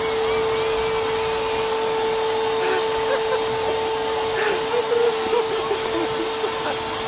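Canister vacuum cleaner running steadily: a constant motor whine that holds one pitch throughout.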